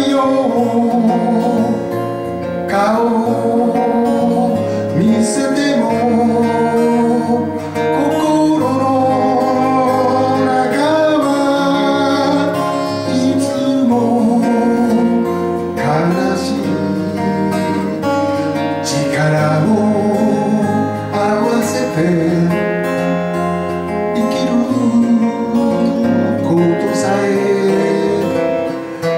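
A man singing a Japanese folk song while strumming an acoustic guitar.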